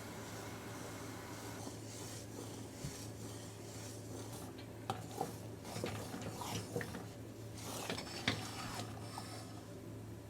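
A utensil scraping and rubbing against a dish, with several sharp clinks, the loudest about five and eight seconds in, over a steady low hum.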